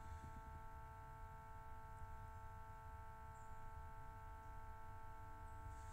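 Quiet room tone: a faint, steady hum made of a few constant tones over a low rumble.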